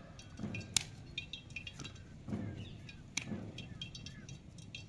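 Faint handling sounds of fingers pressing moist spiced potato stuffing into a halved tomato over a steel plate, with light clicks and clinks against the plate. Two sharper clicks stand out, one under a second in and one a little after three seconds in.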